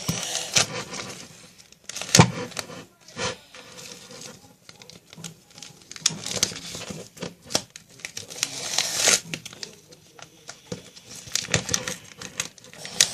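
Electrical tape being pulled off the roll and wrapped around a fabric piece: crackling, tearing peels and rustling, with a few sharp clicks and knocks.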